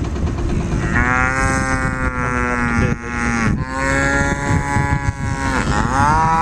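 Beef cows mooing: three long, drawn-out calls one after another, each sliding up at its start and then held, with a lower second voice under the first and the last running past the end. The cows are calling for feed pellets.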